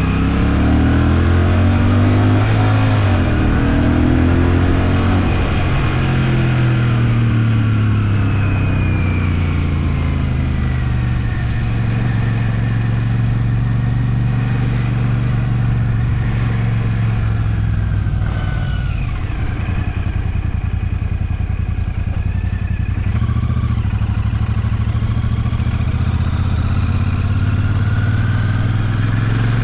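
Royal Enfield Shotgun 650's parallel-twin engine running under way. The revs climb over the first few seconds and ease off, hold steady through most of the stretch, then start to rise again near the end.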